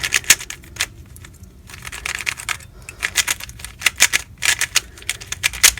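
Freshly tensioned and lubed MoYu RS3M 2020 3x3 speedcube being turned by hand: quick runs of plastic clicks as the layers snap round, in bursts with short pauses.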